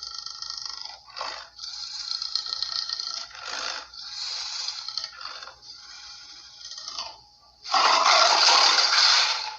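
A string of harsh, raspy snarl sound effects, each lasting about a second with short breaks between them. The loudest is a broad, hissing snarl about eight seconds in.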